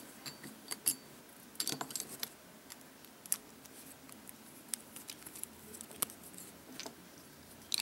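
Small clicks and clacks of Beyblade parts being fitted together by hand, a metal fusion wheel against a plastic clear wheel and face bolt: a short run of clicks about two seconds in, then single clicks every second or so.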